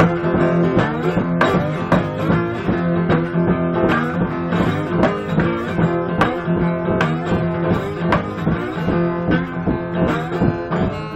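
Acoustic guitar played blues with a bottleneck slide: picked notes over a repeating low bass note, with some notes sliding in pitch.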